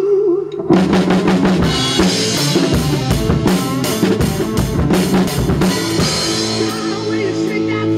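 Acoustic drum kit played along with a rock recording. A singing line ends, then about a second in the snare, bass drum and cymbals come in hard with the band's riff. After about 6 s the hits thin out under held notes.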